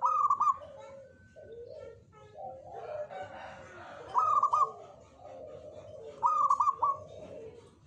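Zebra doves (perkutut) cooing steadily, with three louder, higher calls of quickly repeated notes: one at the start, one about four seconds in and one about six seconds in.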